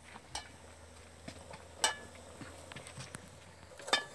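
A metal ladle and wire strainer clinking against a metal cooking pan: two sharp, ringing clinks almost two seconds apart, with lighter taps between.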